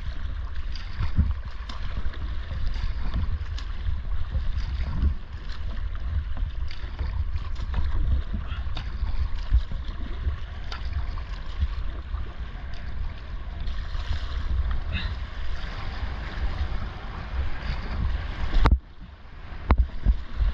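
Rushing whitewater around a kayak, heard through a GoPro, with a heavy low rumble and scattered knocks. The sound cuts out sharply for about a second near the end, then returns.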